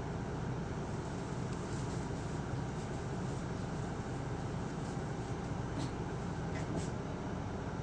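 Interior running noise of an Isuzu Erga city bus (PKG-LV234L2) with a diesel engine: a steady hum and rumble heard from inside the cabin, with a few faint ticks or rattles near the end.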